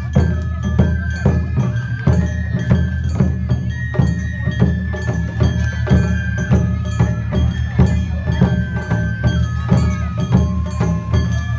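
Traditional Japanese festival dance music, with a high held melody line over a steady beat of drums and percussion.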